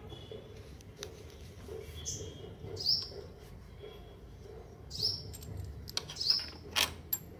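A small bird chirping over and over in short chirps that fall in pitch. Around them are a few sharp metallic clicks and taps from handling the exhaust hardware, the loudest a cluster near the end.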